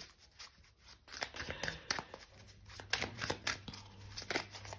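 A deck of tarot cards being shuffled by hand: a run of light, irregular card clicks and flutters, sparse for the first second and then close together.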